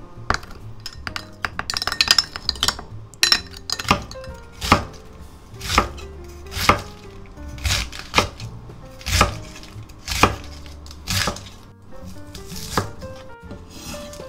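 A kitchen knife slicing a cabbage wedge on a wooden cutting board, a sharp stroke roughly once a second as the blade comes down onto the board. In the first few seconds, a spoon clinks in a glass as a sauce is stirred. Light background music plays underneath.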